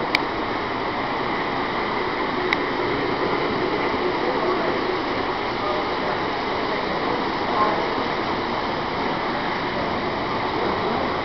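Steady hubbub of a crowded hall, many voices blending into one din, with model trains running on the layout. Two sharp clicks, one right at the start and one about two and a half seconds in.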